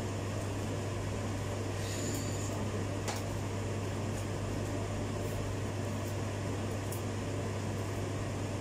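Steady low electrical hum with an even hiss behind it, and one light click about three seconds in.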